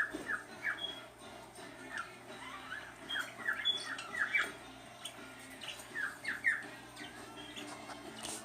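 Puppy whimpering in short, high-pitched squeaks that come in small clusters, the busiest group around the middle.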